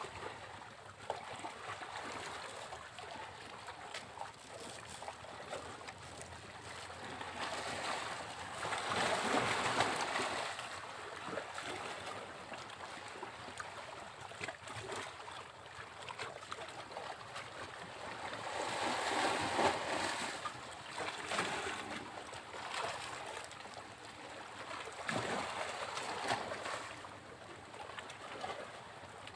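Sea waves breaking on a beach and washing in. The surf swells and fades, with three louder breakers about ten seconds, twenty seconds and twenty-six seconds in, over a steady wash.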